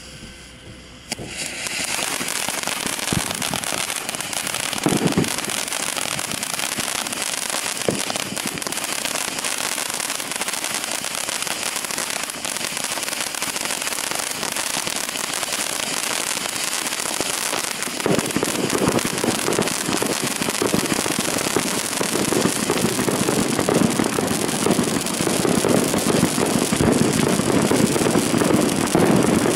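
Consumer ground fountain firework burning. A quieter fizz for about a second, then the fountain catches and sprays with a steady dense hiss and crackle, with a couple of sharper pops. From about two-thirds of the way through it grows louder, with heavier crackling.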